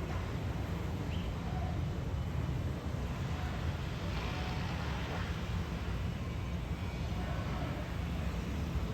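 Aircraft flying overhead: a steady, low engine drone.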